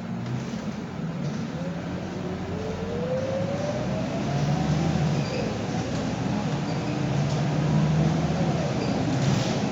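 Scania K230UB city bus heard from inside the cabin while driving. The engine runs under load with a whine that rises steadily in pitch over a few seconds as the bus gathers speed, over road and cabin noise that grows louder.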